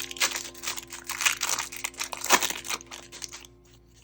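Foil wrapper of a 2019 Topps Update Series baseball card pack being torn open and crinkled, a dense run of crackles that dies away about three and a half seconds in.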